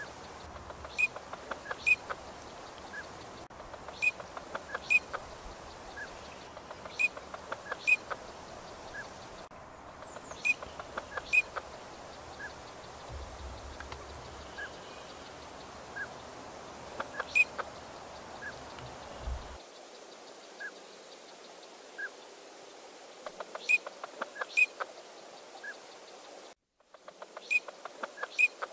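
Eurasian teal giving short, high whistled calls, often in quick runs of two to five with gaps between. A low background rumble cuts off abruptly about two-thirds of the way through.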